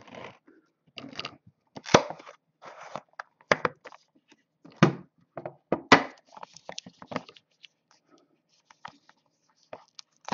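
Hands struggling to open a sealed trading-card box: plastic wrap and cardboard crinkling and tearing in irregular bursts, with sharp cracks about 2, 5 and 6 seconds in.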